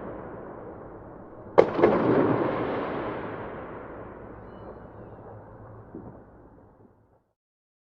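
A firework shell bursting with one sharp bang about one and a half seconds in, followed by a long echoing tail that slowly fades; a small crack near the end, then the sound cuts off abruptly.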